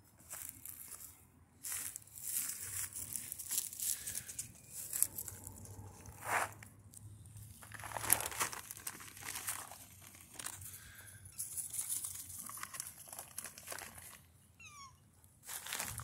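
Irregular crinkling and rustling that comes and goes, with a quick run of high, falling chirps about a second before the end.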